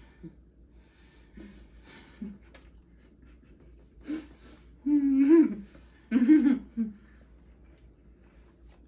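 Faint clicks of people eating, then two loud wordless vocal outbursts from a person at the table, about five and six seconds in.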